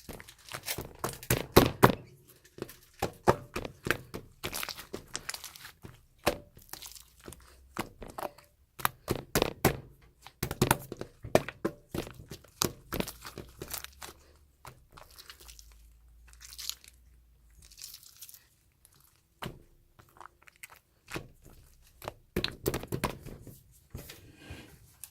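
Chewy pink slime being squished, stretched and poked by hand, giving irregular clusters of sticky clicks and crackles.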